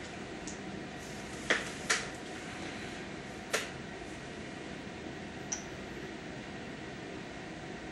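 Steady hiss with three sharp knocks or clicks: two close together about a second and a half in, a third about two seconds later, and a faint tick a couple of seconds after that.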